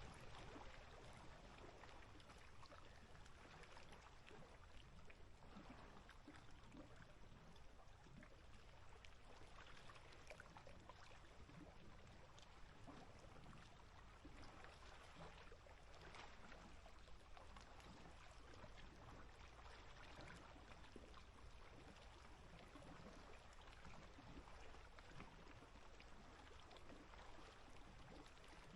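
Faint water lapping at a lake's edge, with many small pops and trickles as little waves break against the shore.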